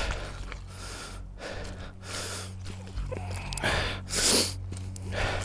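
A man breathing hard, a series of short hissy breaths about a second apart, over a low steady hum.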